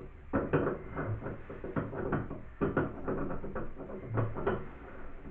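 Irregular knocks and clicks of metal bathtub tap parts being handled, a few per second, as the valve with its new gasket is worked back toward the faucet body.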